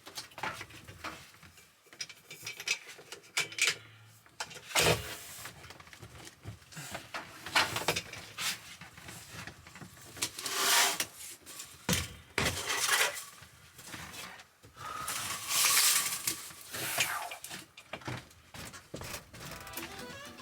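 Irregular knocking, clattering and scraping of hard objects being handled and moved around inside a caravan, with longer scrapes about ten and sixteen seconds in.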